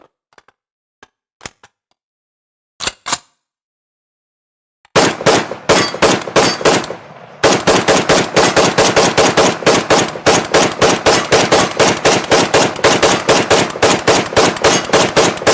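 Gunshot sound effects of automatic fire. A few sharp isolated clicks come first, then about five seconds in a burst of rapid shots starts. After a brief dip it becomes a long unbroken stream of about five shots a second.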